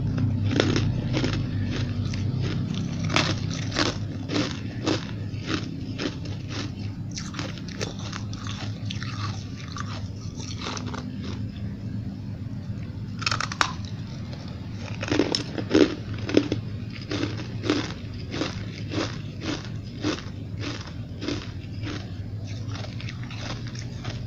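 Chunks of frosty refrozen ice being bitten and crunched in the mouth: a long run of crisp crunches, about two a second, the loudest bites coming around the middle.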